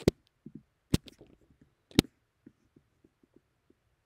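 Computer mouse clicking: three sharp clicks about a second apart, with fainter light ticks in between and after.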